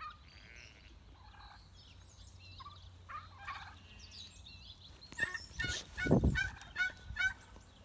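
Farm fowl calling: repeated short, sharp calls, sparse at first and then a fast, louder run over the last few seconds. A brief low rumble about six seconds in.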